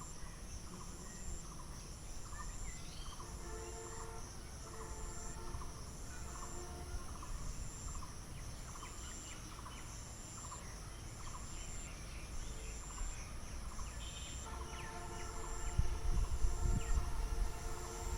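Outdoor ambience with a short call, a bird's or an insect's, repeating about every two-thirds of a second over a low wind-like rumble. A steady droning hum of several tones comes in twice, the second time near the end as the sound grows louder.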